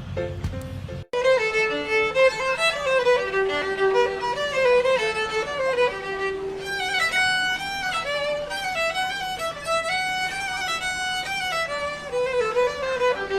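Background music: a violin playing a quick melody of many short notes, starting abruptly about a second in after a sudden cut.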